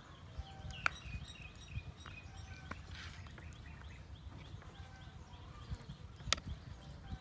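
A metal spoon clicking sharply against a metal tray twice, about a second in and again near the end, while scooping food, over a low rumble and faint bird chirps.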